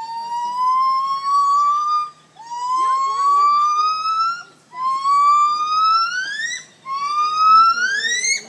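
Female gibbon calling: four long rising whoops of about two seconds each, the later ones climbing more steeply at the end, the building sequence of a gibbon's great call.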